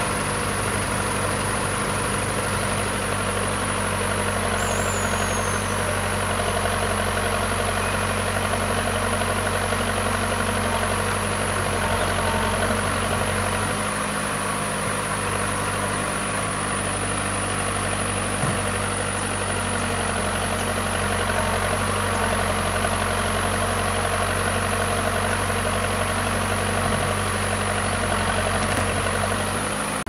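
Escorts backhoe loader's diesel engine running at a steady speed while it loads soil into a tipper truck.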